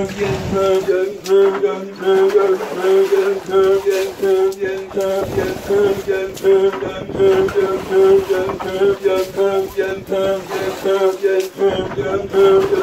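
Samburu/Rendille warriors singing a repetitive work chant at a hand-dug water well, the voice held close to one note in short, evenly repeated phrases, with water splashing from the jerrycans being filled and passed up.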